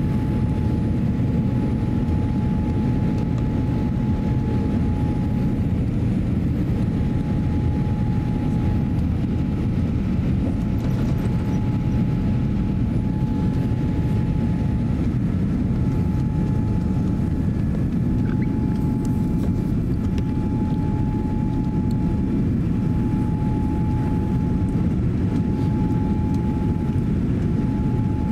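Cabin noise inside a Boeing 787-8 climbing out after takeoff: a steady rush of engines and airflow, with a thin whine that breaks off and returns every few seconds.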